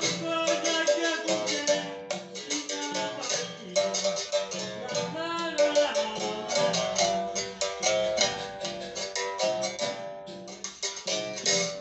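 Music with fast, continuous plucked-string playing, many quick notes at changing pitches.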